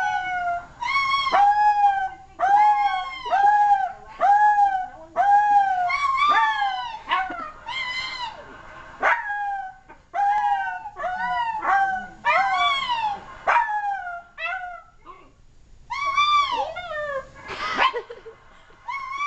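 A silky terrier howling: a long run of short pitched howls, each rising then falling in pitch, about one a second, with a brief pause about three-quarters of the way through.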